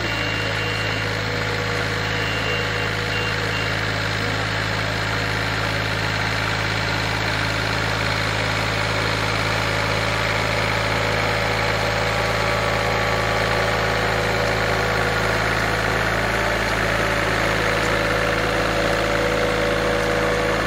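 Engine of an unmanned (autonomous) riding rice transplanter running steadily, a constant low drone.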